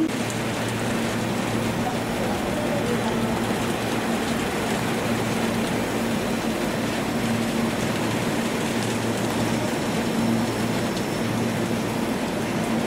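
Steady rush of heavy rain mixed with the running noise of a JR West electric commuter train passing along the platform, with a low steady hum underneath.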